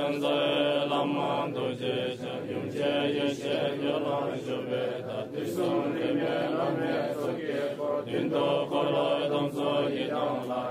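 Tibetan Buddhist prayer chanting: a voice reciting liturgy in a continuous, steady flow.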